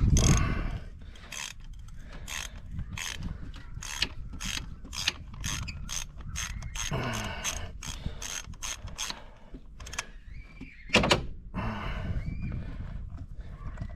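Ratchet wrench clicking in a run of even strokes, about two clicks a second, as a spark plug is turned out with a spark plug socket, with a few louder noisy bursts in between.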